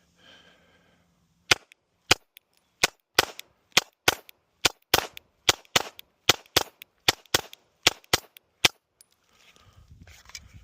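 Glock 17 9mm pistol fired in a string of about twenty shots, starting about a second and a half in and stopping near the end, unevenly paced with the quickest shots in the middle.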